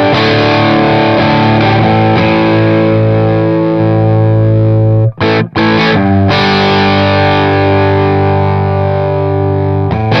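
Electric guitar played through an Oldfield 6715 EL84 tube amp with an EF86 preamp, the input gain pushed for an overdriven, distorted tone. Sustained ringing chords, cut short twice in quick succession about midway, then picked up again.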